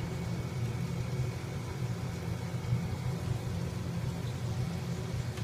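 A steady low rumble with a faint hum over it, unchanging throughout.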